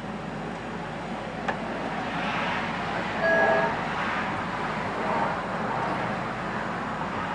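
A vehicle passing on a nearby road: tyre and engine noise swells and fades over a few seconds, with a brief higher tone near the middle.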